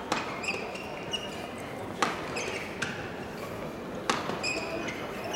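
Badminton hall sounds: four sharp hits of a racket on a shuttlecock, spaced about two seconds apart, and short high squeaks of shoes on the court mat, over a steady murmur in a large hall.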